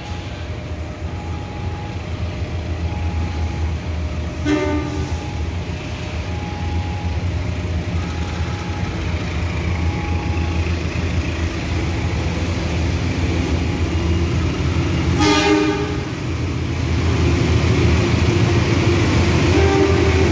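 Diesel locomotive of a fuel tanker freight train running and drawing closer, its low engine rumble growing louder, with two short horn blasts, one about four seconds in and a stronger one about eleven seconds later. A faint repeating two-note beep sounds through the first half.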